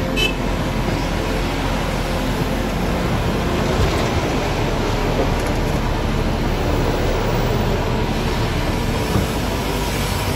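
Heavy diesel engine and hydraulics of a Cat 349F excavator running steadily under load through a swing-and-dump cycle, emptying a bucket of dirt into a bottom-dump trailer.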